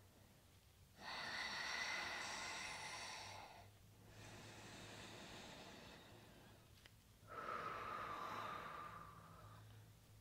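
A woman breathing slowly and deeply while holding a yoga stretch: two long, airy breaths about a second in and about seven seconds in, with a softer breath between them. A faint steady low hum underneath.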